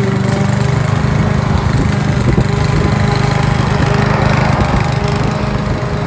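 Petrol walk-behind lawn mower running steadily as it is pushed through grass, close by.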